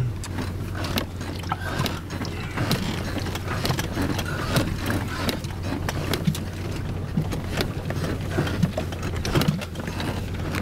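A four-wheel-drive vehicle heard from inside its cabin: the engine drones steadily while the cab rattles and knocks irregularly as it bounces over a rough, bumpy dirt track.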